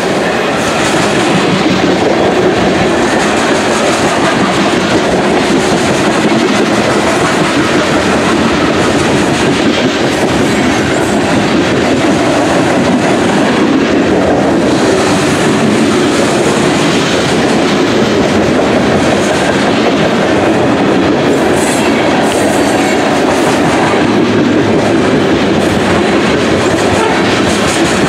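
Cars of a long BNSF coal train rolling past close by: a loud, steady rumble and rattle of steel wheels on the rails.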